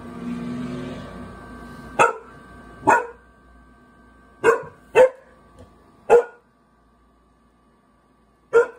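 Seven-month-old Great Bernese puppy (Great Pyrenees × Bernese Mountain Dog cross) barking: six short, single barks, loose and uneven, the last coming after a pause of about two seconds.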